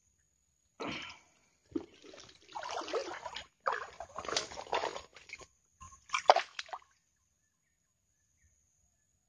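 Shallow swamp water sloshing and splashing in irregular bursts as a hooked snakehead is landed from a set line. The loudest splash comes about six seconds in, then the water goes still.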